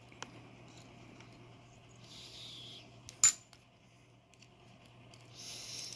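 A small metal lock pin drops onto a hard surface with one sharp metallic tink a little past halfway, with a fainter click near the start and light scraping handling noises before and after.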